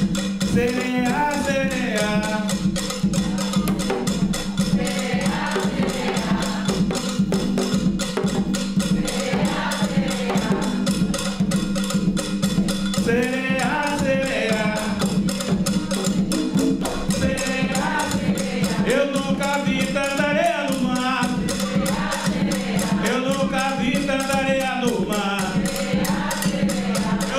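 Afro-Brazilian percussion ensemble playing a samba de caboclo rhythm on hand drums and other percussion. Over the drumming a man sings in phrases, with short gaps between them.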